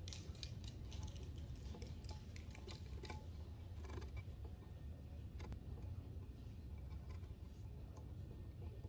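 Hands tying a thin cord to an aluminum kayak rudder: faint, scattered small clicks and rustles of the line and fingers against the rudder, over a low steady hum.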